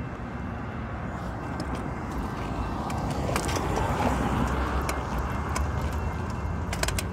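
Road traffic: cars driving past on the street, the tyre and engine noise swelling about halfway through. A few sharp clicks near the end.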